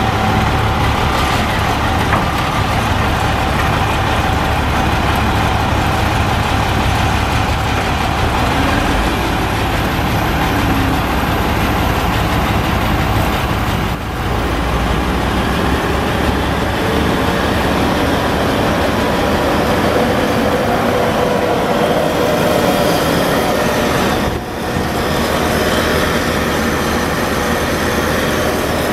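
Vactor 2110 combination sewer truck's diesel power and vacuum system running loudly and steadily, with a faint high whine rising between about 9 and 14 seconds in. The sound dips briefly twice, about halfway and again near the end.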